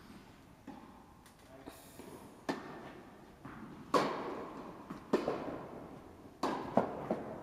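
Tennis ball being hit by rackets and bouncing on an indoor hard court during a rally: sharp hits about a second apart, each echoing in the hall.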